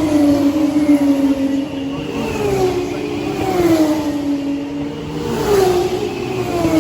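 Formula 1 car's turbocharged hybrid V6 engine running hard on track, its pitch falling and climbing again several times as the car changes speed through the gears.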